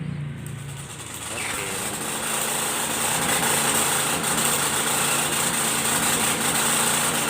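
Honda GX160 single-cylinder petrol engine driving a car-wash pressure pump, speeding up about a second in and then running steadily, with a steady high hiss alongside.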